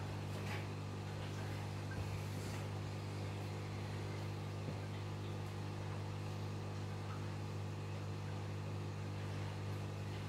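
Steady electrical hum of running aquarium equipment, a low drone under an even hiss, with a few faint ticks.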